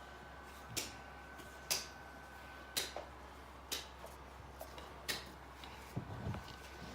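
Sharp, regular clicks about once a second over a faint steady hum, with a few soft low sounds near the end.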